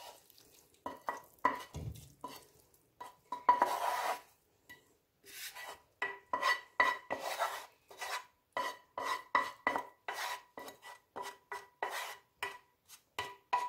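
Wooden spoon scraping fried vegetables out of a metal frying pan into a stainless steel pot and stirring them in. Many short knocks of the spoon against the pan and the pot rim, several ringing briefly, coming faster from about six seconds in.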